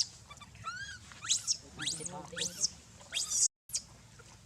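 A baby macaque's shrill screams, about five, each sweeping steeply down in pitch, with one shorter wavering call about a second in; the crying of an infant kept from nursing. The sound cuts out for a moment about three and a half seconds in.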